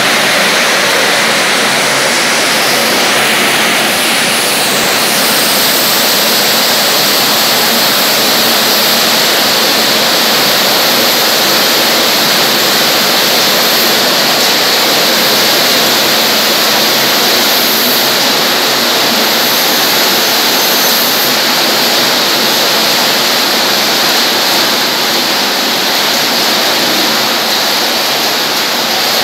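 Belt-driven label scraper machine running, a loud steady rushing noise with no pauses or changes in speed.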